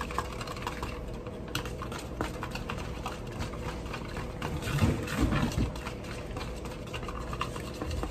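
Wire whisk beating heavy cream and powdered sugar in a plastic bowl by hand: rapid, steady clicking of the wires against the bowl with a light wet splatter, as the cream is whipped toward soft peaks. A brief louder low sound comes about five seconds in.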